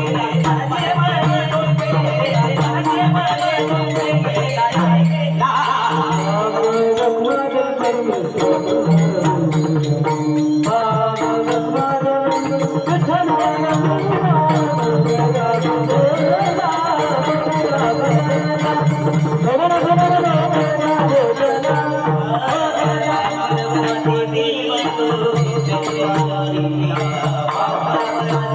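Marathi devotional song sung by a male singer in a Bhairavi tune, his voice gliding through ornamented phrases over a steady held drone, with jingling rhythm percussion.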